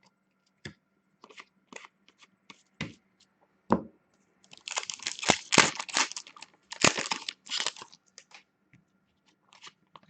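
Foil wrapper of an Upper Deck hockey card pack torn open and crinkled, with a dense crackle in the middle few seconds. Light taps and clicks of cards being handled come before and after it.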